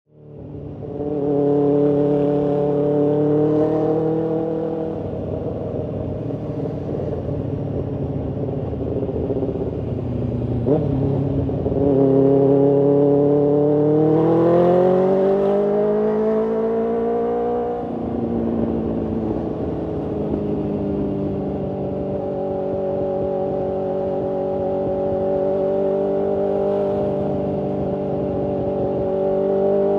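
BMW S1000RR's inline-four engine and exhaust under way on the road, fading in at the start. Past the middle the engine note climbs steadily as the bike accelerates, then drops sharply at a gear change and settles into a steady cruise; a brief click sounds about a third of the way in.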